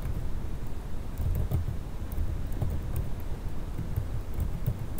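Scattered key clicks typed on a computer keyboard over a steady low rumble.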